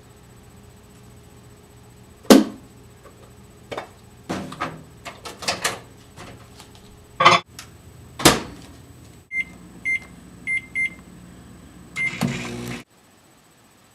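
Microwave oven being used: a run of clunks and knocks as the door and food are handled, then a few short keypad beeps, and a brief hum as the oven starts before the sound cuts off.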